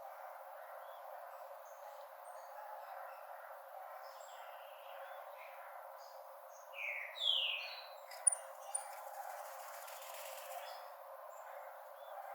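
Rufous-collared sparrow singing: two loud, slurred whistled notes about seven seconds in, then a couple of short high notes. Faint chirps from other birds and a steady outdoor hiss run throughout.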